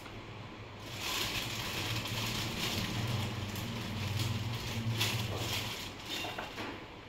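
Rustling and crinkling of small cloth outfits and their plastic packets being handled on a cupboard shelf, with a few light knocks. A low steady hum runs under it for a few seconds in the middle.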